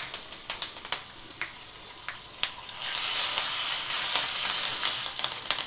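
Tempering spices, vadagam and freshly added curry leaves frying in hot oil in a small steel kadai, stirred with a ladle. Scattered sharp crackles give way to a louder, steady sizzle about three seconds in.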